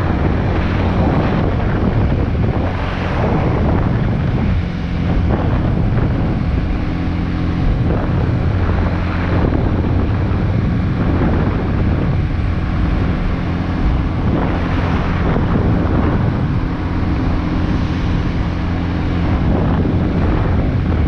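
Big Boy SuperLight 200cc motorcycle's single-cylinder engine running steadily at road speed, mixed with heavy wind noise on the microphone from riding.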